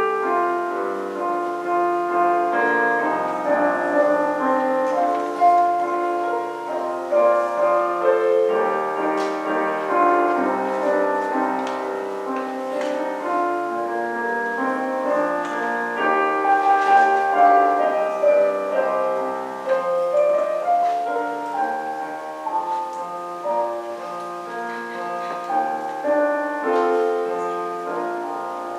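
Instrumental piano music: a continuous piece with many overlapping notes.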